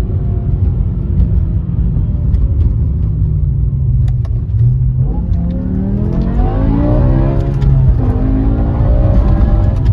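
BMW S85 5.0-litre V10 engine under acceleration. It holds a fairly steady note for the first few seconds, then revs up hard from about five seconds in, drops in pitch sharply near eight seconds as if on an upshift, and climbs again.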